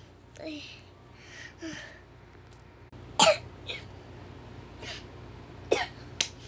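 Brief, scattered vocal sounds from young children, not words, with a sharp cough-like burst about three seconds in and a few more short ones near the end.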